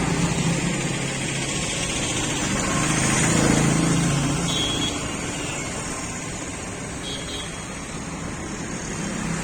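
Road traffic going by, with one vehicle's engine swelling as it passes about three to four seconds in and then fading.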